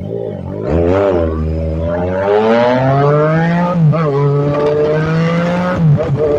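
Yamaha MT-09's three-cylinder engine accelerating, its pitch rising steadily, dropping at an upshift a little under four seconds in, then pulling again, with another shift near the end.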